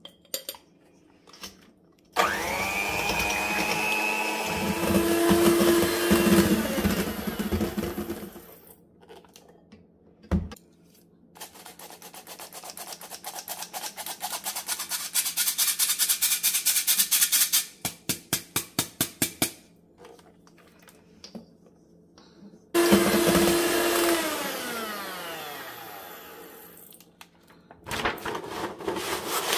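Electric hand mixer with wire beaters whisking batter in a steel bowl: the motor spins up and runs, and later runs again and winds down. In between, a hand-crank flour sifter turns with a fast rasping click, followed by a run of quick taps. Parchment paper crinkles near the end.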